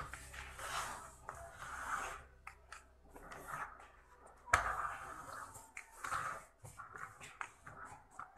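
Faint handling noises of hard plastic building-block toys being moved about on a tabletop: soft rubbing with scattered small clicks, and a sharper bump about four and a half seconds in.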